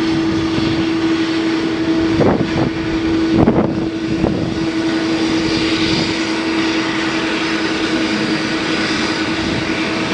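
Boeing 777-200ER's twin jet engines at takeoff thrust as the airliner climbs away: a steady, loud jet noise with a steady droning note, and a few crackles about two to four seconds in.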